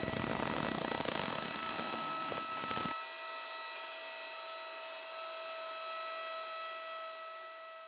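Small geared DC motor driving the winch of a homemade toy crane, running with a steady whine. A rougher grinding layer under the whine cuts off suddenly about three seconds in, and the whine carries on.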